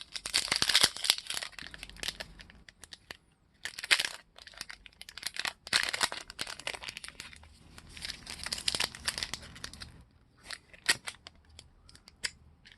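Trading cards being handled and slid against each other, a papery rustling and crinkling that comes in uneven bursts, thinning to a few light clicks near the end.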